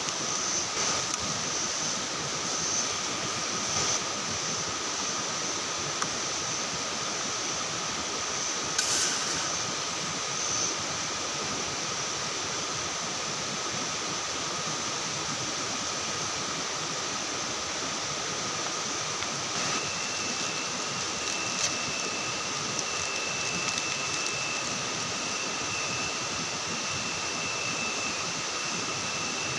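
Forest ambience: a steady hiss with continuous high-pitched insect tones, and another insect tone joining about two-thirds of the way through. A brief click sounds about nine seconds in.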